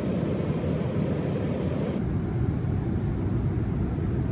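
Steady airliner cabin noise in flight, a low even rush of engine and airflow noise heard from inside the cabin. About two seconds in the sound changes abruptly to a deeper rumble, where one clip cuts to another.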